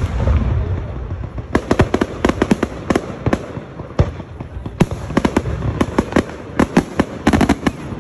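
Fireworks display: aerial shells bursting in quick volleys of sharp bangs and crackles, with a low rumble in the first second.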